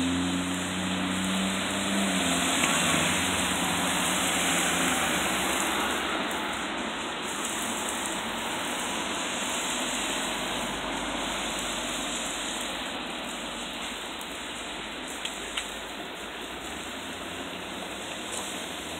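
Road traffic on a wet road: a steady hiss of car tyres on wet asphalt, with a passing car's engine hum falling in pitch over the first two seconds. The hiss slowly eases, and two short clicks come about fifteen seconds in.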